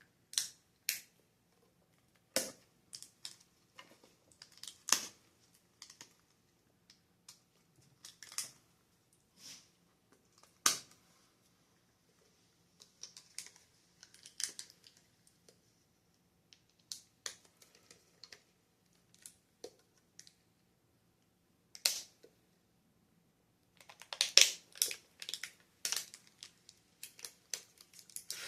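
A Pokémon TCG mini tin being opened and unpacked by hand: scattered sharp clicks and taps from the tin and its contents, with denser crinkling and rustling of packaging near the end.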